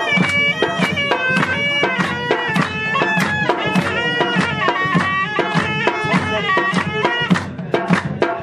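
Surnai, a shawm-type double-reed pipe, playing a lively Balti folk melody in shifting held notes. It plays over a fast, steady beat with hand claps.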